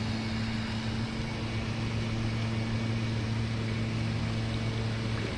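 A machine's steady low hum, with an even pitch, easing off near the end.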